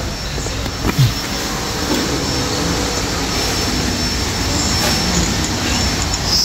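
A steady roar of background noise, with a single short knock about a second in.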